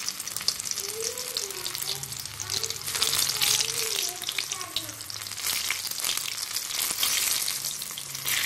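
Batter-coated drumstick pieces deep-frying in hot oil in a kadai: a steady sizzle full of small crackles and pops, louder from about three seconds in as more pieces go into the oil.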